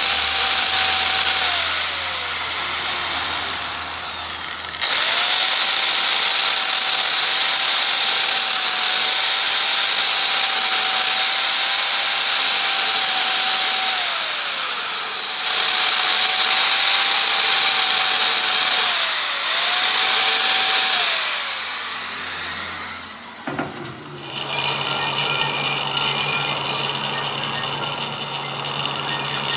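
A small high-speed grinding wheel grinds a steel splined gear shaft, its motor whining at a steady pitch. It is switched off and on several times, the whine falling away as it spins down each time. Near the end a lathe turns a shaft with a lower hum while a hand file is held against it.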